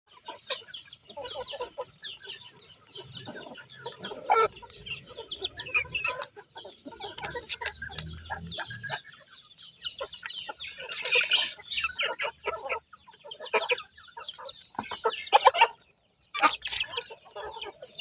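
Chickens clucking, a busy stream of short calls with one brief break near the end.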